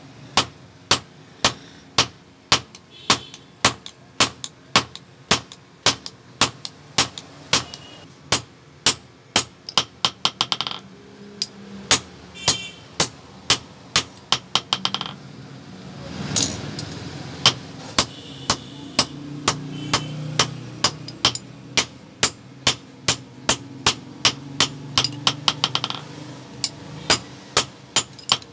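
Hand hammer striking red-hot iron on an anvil block: sharp ringing blows about two a second, with a couple of short pauses partway through, as the bar is forged flat into a blade.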